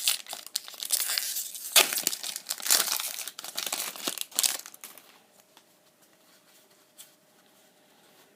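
A Pokémon booster pack's foil wrapper crinkling and tearing as it is ripped open, dense crackling for about four and a half seconds, then only faint handling.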